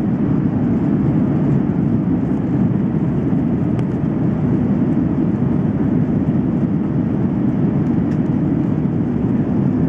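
Airbus A330-300 cabin noise in the climb after take-off: the Rolls-Royce Trent 700 engines and the rush of air over the fuselage make a steady, deep, even noise heard from a seat by the wing.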